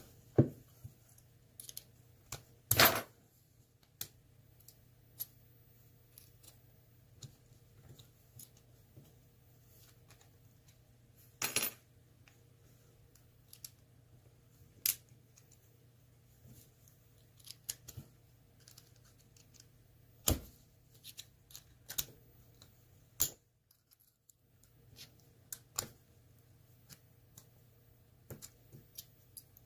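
Scattered small metallic clicks and taps as an ASSA Twin lock cylinder and tools are handled, with a handful of sharper clicks spread across the stretch.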